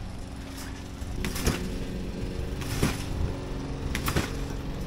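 Trick scooter on a trampoline: repeated soft thuds of bounces on the mat with the scooter knocking, some in quick pairs, about a second or more apart. A steady low mechanical hum runs underneath.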